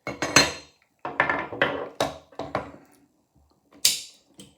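Metal parts of a mortice sash lock clinking and clattering as the lock is taken apart by hand, with a run of knocks and rattles over the first three seconds. A brief scrape comes near the end.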